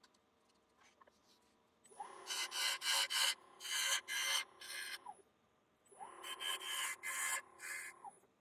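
Bowl gouge cutting the inside of a small ash bowl on a wood lathe: two runs of short cuts, each about five scraping strokes, over a steady whine from the lathe.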